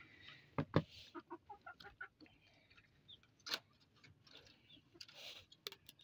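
Chickens clucking softly in short, scattered notes, with a few sharp clicks and knocks from cage handling.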